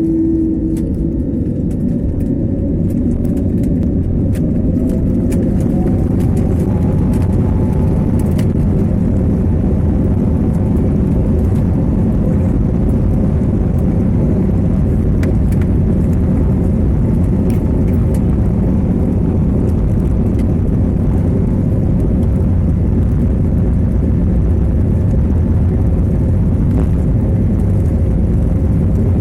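Airliner jet engines heard from inside the passenger cabin during takeoff: a loud, steady rumble, with an engine whine that rises in pitch over the first several seconds as thrust builds.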